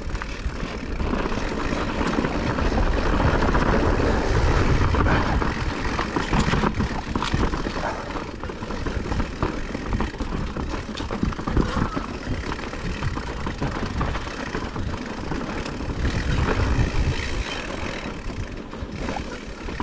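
Blizzard wind gusting hard against the microphone: a loud, low rumbling rush that swells and eases, strongest a few seconds in and again near the end.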